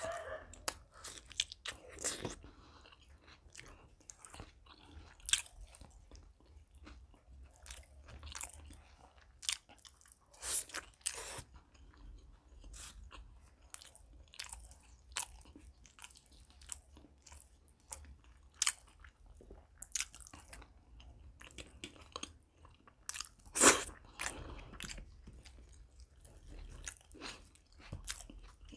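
A man chewing and biting mouthfuls of spiced chicken liver and gizzard with paratha, with wet smacking mouth sounds in irregular short clicks. One louder bite or smack comes late on.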